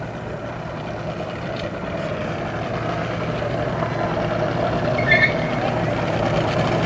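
An engine running steadily and slowly getting louder, with a brief high chirp about five seconds in.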